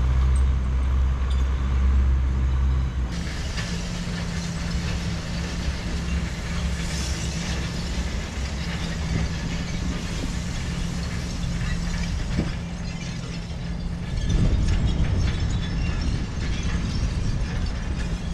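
Outboard motor of a small aluminium boat running at low speed. Its note changes about three seconds in, then settles into a steady hum.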